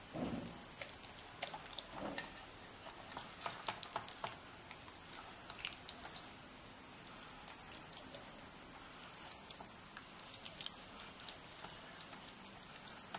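Silicone basting brush dabbing and spreading thick wet masala paste over a whole raw catla fish in a steel pan: faint, irregular wet clicks and sticky squelches, with a soft thud at the start as the fish is handled.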